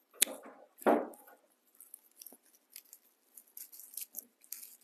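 A single scissors snip through jute twine, a short voice sound just after, then faint dry rustling and crinkling of raffia and jute being handled and tied into a bundle.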